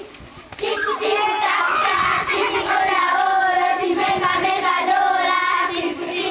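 A group of children singing together, holding long sung notes, after a brief pause right at the start.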